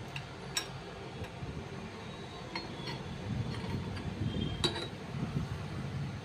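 Light metallic clinks of a steel ring spanner being fitted onto the nut of a scooter's CVT drive pulley, a few separate taps, over a low background rumble that grows from about halfway through.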